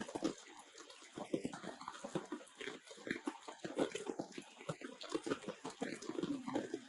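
Baby monkey crying in short, repeated cries over a steady crackling patter of rain.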